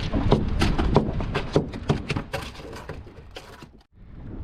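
Rapid, irregular knocks and clatter, several a second, growing fainter and cutting out briefly near the end.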